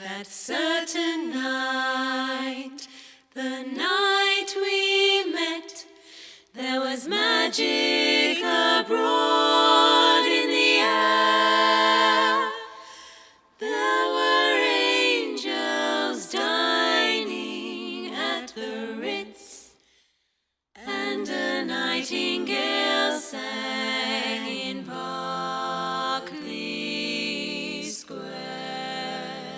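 Several voices singing a cappella in harmony, in phrases broken by short pauses.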